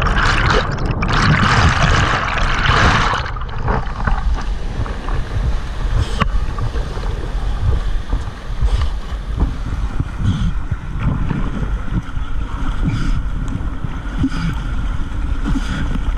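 Fast flood-level river whitewater rushing around a kayak, loud and hissing for about the first three seconds, then a lower, muffled rumble with splashes. A single sharp click sounds about six seconds in.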